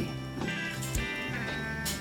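Background music with steady held notes, and a few short ticks.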